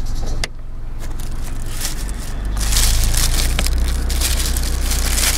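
Clear plastic wrapping being handled and crinkled, a rapid crackle that grows louder about halfway in, after a click about half a second in. A steady low hum runs underneath.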